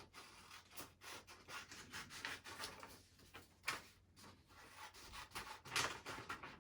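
Faint rustling and rubbing of paper as a printed shipping label is trimmed and handled, in short irregular strokes with two sharper scrapes, one a little past the middle and one near the end.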